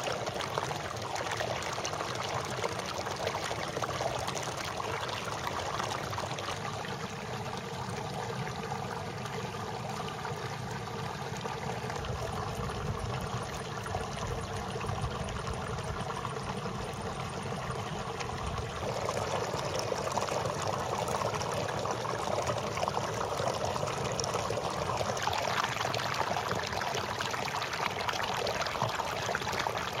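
Water running and trickling steadily. It grows brighter and a little louder about two-thirds of the way through.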